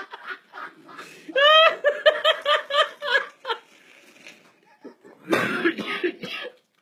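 A man laughing into the microphone. A high-pitched run of quick "ha-ha" pulses, about five a second, starts with a rising note just over a second in and lasts about two seconds. A breathier, wheezing burst of laughter follows about five seconds in.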